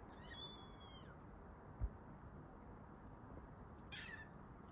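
Tabby cat meowing twice in greeting as people come home: one long arching meow at the start and a short one near the end. A soft low thump about two seconds in.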